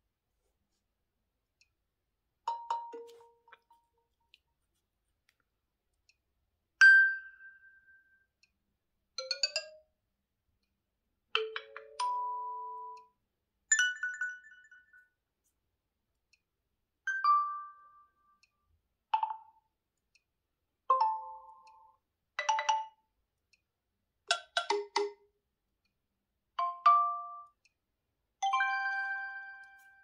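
OnePlus 9 Pro's preset alert tones played one after another: about a dozen short electronic tones, each different in pitch and pattern, one every two to three seconds with silence between them.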